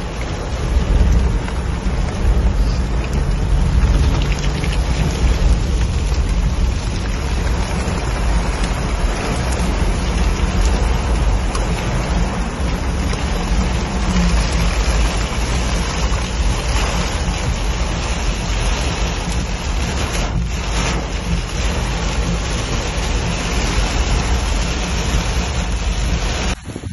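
Heavy rain and wind beating on a moving Toyota, heard from inside the cab, over a low steady rumble of engine and tyres. The noise cuts off suddenly near the end.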